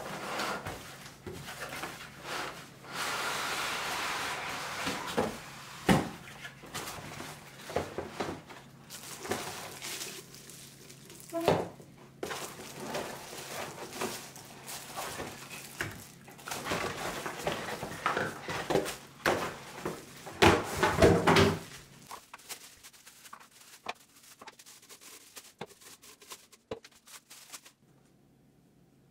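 Cardboard packaging and plastic wrap being handled while a blender is unboxed: the box is slid and opened, and parts are lifted from a moulded pulp tray. Irregular rustling, crinkling and light knocks of plastic parts set on a countertop, thinning out after about twenty seconds.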